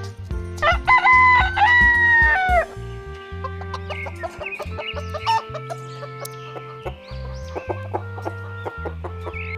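A rooster crowing once, a loud call of about two seconds that drops off at the end, followed by hens clucking, over steady background music.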